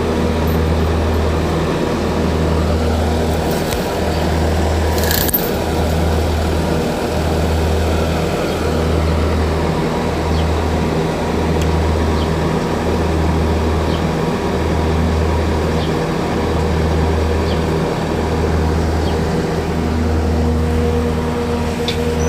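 Skid steer engine running steadily while piling manure, its low hum swelling and fading about every second and a half. A single sharp click about five seconds in.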